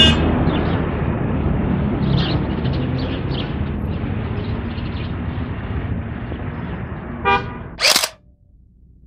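Outdoor street ambience: a steady rumble of traffic with a brief horn toot about seven seconds in. Just after it comes a short sharp noise, and the sound drops abruptly to a faint hum.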